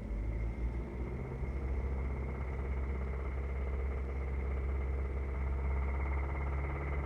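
2006 Hyundai Sonata engine idling steadily, with a fast, even ticking-knocking running through the idle that the owner cannot identify. A thin steady high whine sits over it.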